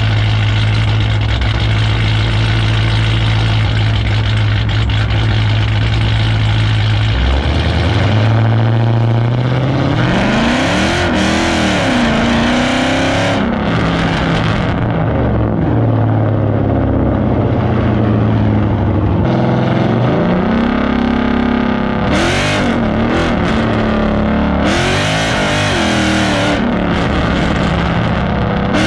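Straight-piped car exhaust running at a steady low drone for about seven seconds, then revving, its pitch rising and falling several times as the car accelerates and lets off.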